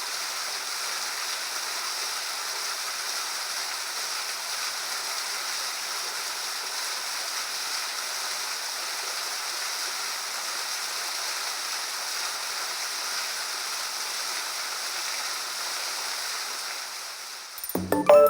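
Waterfall, an 18 m drop, pouring steadily as an even rushing hiss with no breaks. Near the end it fades out and music begins.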